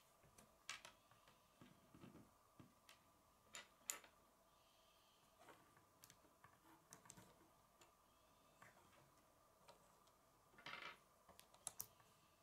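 Faint, irregular clicks and taps of plastic K'nex rods and connectors being handled and snapped together on a wooden tabletop, over a faint steady hum.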